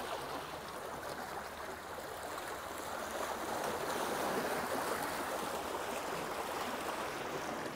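Black Sea waves washing against the shore: a steady rush of surf that swells slightly in the middle.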